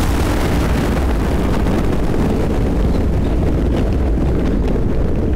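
Thunder rolling with a deep, continuous rumble over steady rain; a bright crackling hiss at the start fades away over the first few seconds.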